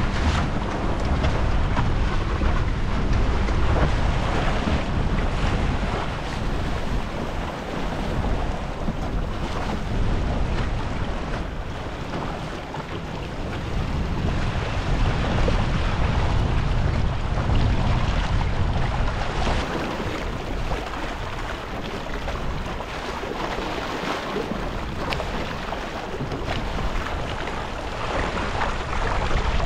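Wind buffeting the microphone over water rushing and splashing along the hull of a small sailing dinghy under way in a strong breeze, the wind rising and easing in gusts.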